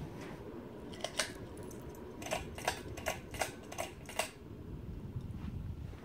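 Hampton Bay Larson ceiling fan running with a steady low whir. About eight sharp clicks come between about one and four seconds in.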